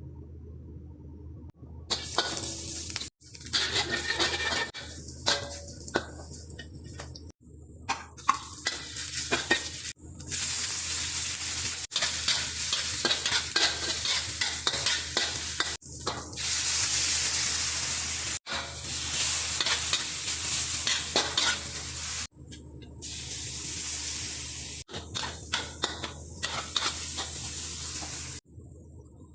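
Mee goreng noodles sizzling as they fry in a pan while being stirred and tossed, with frequent small clicks and scrapes of a utensil against the pan. The sizzling cuts off abruptly and starts again several times.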